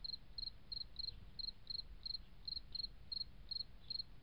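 A cricket chirping at a steady pace, about three short high chirps a second, over a faint low hum.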